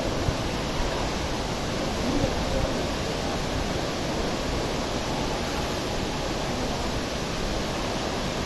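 Steady, even roar of the Aagaya Gangai waterfall: a constant rush of falling water with no breaks.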